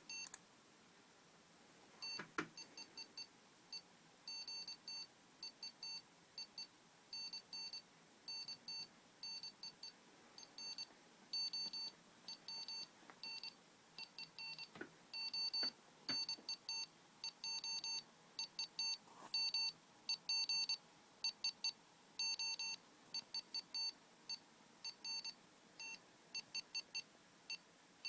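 Morse code beeping from an Arduino-driven electronic beeper: one steady tone keyed on and off in short dots and longer dashes, grouped into letters and words with gaps between. A few faint clicks sound among the beeps.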